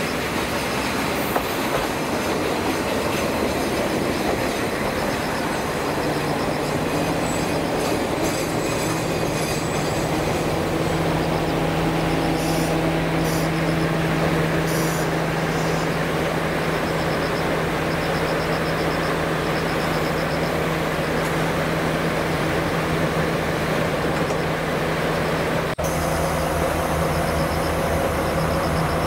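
JR Kyushu KiHa 147 diesel railcar pulling into the station and stopping, with brief high squeals about halfway through and its diesel engine then idling with a steady hum. Insects chirp in rapid pulses in the background.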